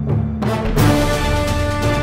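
Background soundtrack music that swells into a fuller, louder passage with held notes about half a second in.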